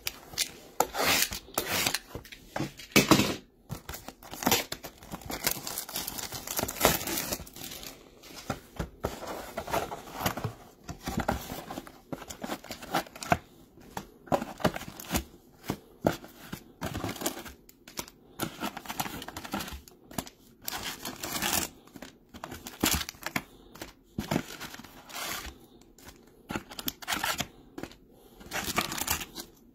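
Wrapping and card packs from a Topps Chrome Cosmic baseball hobby box being torn open and crinkled by hand, in irregular bursts of tearing and rustling, loudest near the start.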